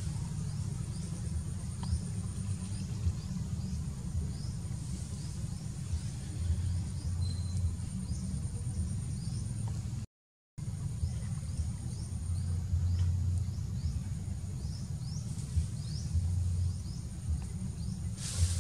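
Outdoor ambience: a steady low rumble under a thin high whine, with faint quick chirps repeating throughout; the sound cuts out briefly about ten seconds in.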